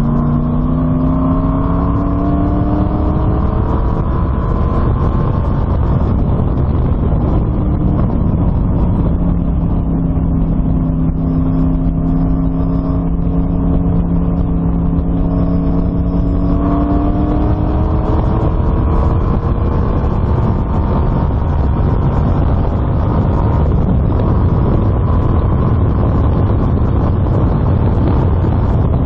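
GM LS1 V8 in an Exocet kit car running hard on a race track, heard close up through an open engine bay. Its pitch climbs under acceleration at the start, holds and rises slowly, turns rougher about halfway through as the driver eases off, then climbs again.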